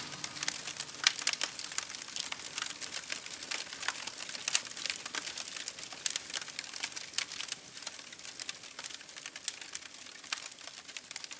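Wood fire in a fire pit crackling, with a steady scatter of irregular sharp pops and snaps.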